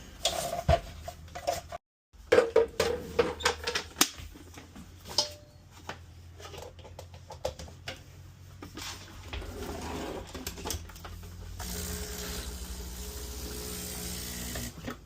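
Clicks and knocks of handling, then about nine seconds in a steady low buzzing hum from a Breville espresso machine's newly fitted Ulka EAP5 vibratory pump being test-run, with a hiss of water joining near the end.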